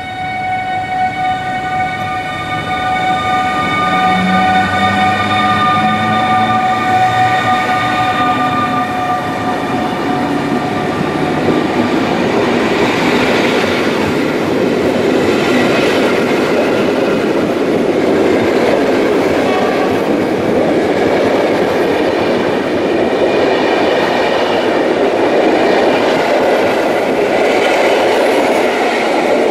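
PKP Intercity EU160 Griffin electric locomotive and its passenger coaches passing through a station. For about the first ten seconds a steady chord of high tones sounds over the approaching locomotive; then the coaches go by close, with loud, even wheel-on-rail rumble and clickety-clack.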